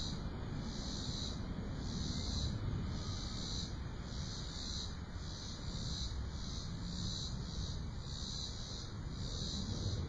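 Cicadas, which the locals call locusts, singing in the trees, with a lighter cricket chirp behind them. The high insect song pulses evenly about three times every two seconds, over a low steady rumble.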